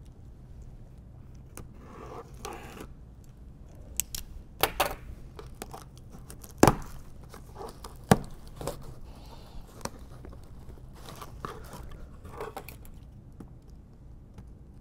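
A taped cardboard box being opened by hand: tape and cardboard tearing and scraping in short rasps, with scattered sharp clicks and snaps, two of them loud in the middle.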